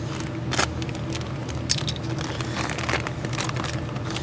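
Crinkling and scattered clicks of a new hydraulic filter's packaging being opened and handled, over a steady low hum.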